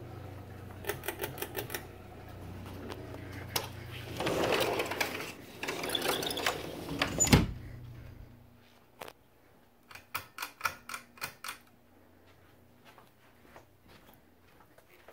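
Ceiling fan running with a low steady hum, over runs of rapid clicking and rustling, with a sharp thump, the loudest sound, about seven seconds in. The hum drops away after about eight seconds, followed by another quick run of clicks.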